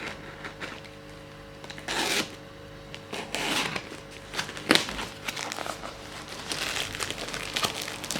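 A parcel's packaging being opened by hand: wrapping crinkling and rustling in irregular bursts, with a sharp knock almost five seconds in.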